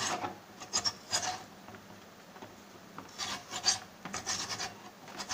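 Potato being grated on a stainless-steel box grater: short rasping strokes, a first run early on, a lull, then a second run of strokes.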